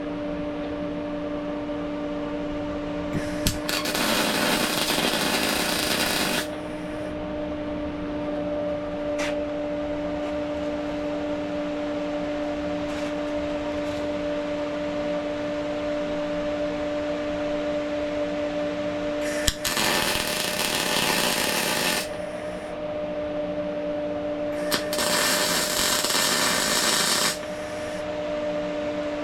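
Electric welder laying three short welds on steel, each a hiss lasting two to three seconds, over a steady electrical hum.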